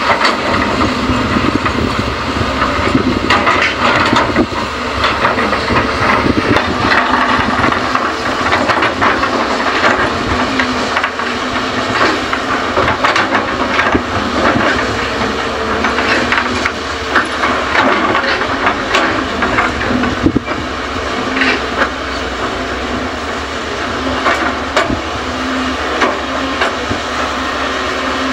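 Hyundai excavator and dump truck at work loading fill soil: engines running under a steady hiss, with scattered knocks and clatter of earth and machinery.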